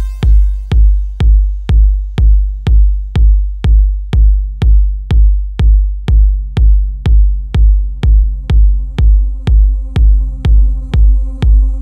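Electronic dance music from a DJ mix: a deep drum-machine kick drum on a steady four-on-the-floor beat, about two beats a second. Held synth tones come in underneath about eight seconds in.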